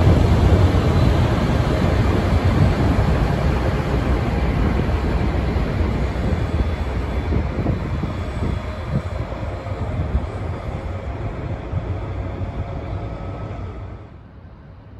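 Two Dv12 diesel-hydraulic locomotives running together, loudest at first and fading slowly as they move away. The sound cuts off suddenly near the end.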